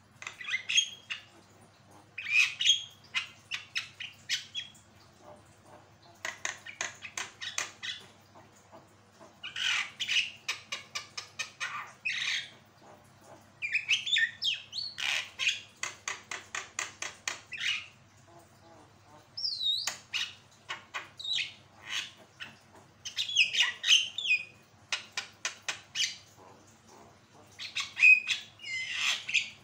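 Javan myna singing vigorously in bouts of harsh squawking notes and quick runs of rapid clicking, several per second, with short pauses between the bouts.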